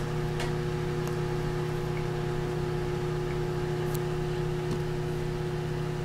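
Microwave oven running: a steady electrical hum, with a few faint ticks.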